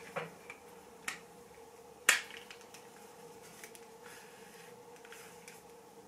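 Sharp clicks from a hair straightener being handled while curling hair: three in the first two seconds, the third loudest, then a few fainter ticks, over a faint steady hum.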